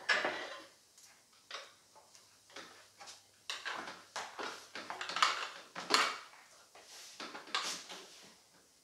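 PowerBlock adjustable dumbbells clanking and rattling as they are lifted off the floor and settled onto the thighs. There is a sharp knock right at the start, then a string of irregular metallic knocks and clatters, the loudest about five and six seconds in.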